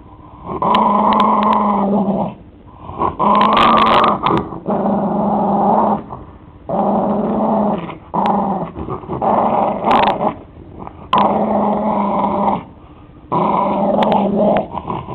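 A puggle (pug–beagle mix) growling in a series of long, steady growls of a second or two each, with short breaks between. He is guarding the treat-filled basketball he chews on as a hand touches toward it.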